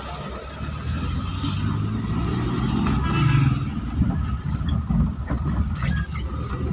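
Motor vehicle running, with steady low engine and road rumble.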